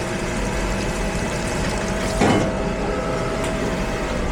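Steady machine hum holding one constant tone, with a brief louder noise about two seconds in.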